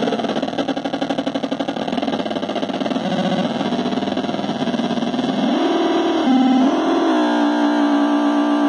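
Handmade three-oscillator 'Noise Head' noise synthesizer played by touching its body-contact screws and turning a knob: a raspy electronic buzz that pulses fast and jumps in pitch, rises about five and a half seconds in, and settles about seven seconds in into a steady buzzing tone.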